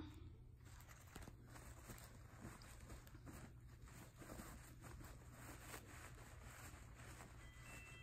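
Faint, irregular rustling and crinkling of paper towels and tissue paper as a Shih Tzu noses and burrows through them, over a low steady room hum.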